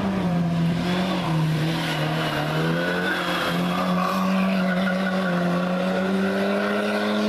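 Fiat 127 race car's small four-cylinder engine running hard through a bend, its pitch dipping and rising and then holding steady as it pulls away, with some tyre squeal in the middle.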